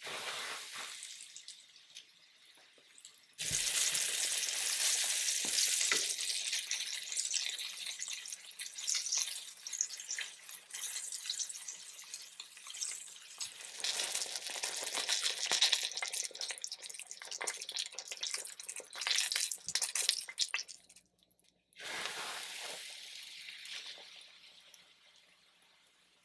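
Hot oil in a cast-iron skillet sizzling and crackling as a flour-coated chicken breast is laid in to fry. The sizzle grows much louder a few seconds in, drops out briefly near the end, then starts again and fades.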